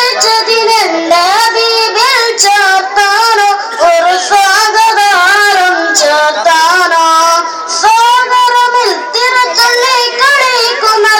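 A child singing a devotional song solo and unaccompanied, a single high voice with long held, ornamented notes, amplified through a microphone.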